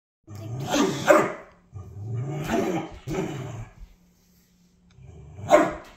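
Bernese mountain dog puppy play-barking: several drawn-out, growly barks with a short pause about four seconds in.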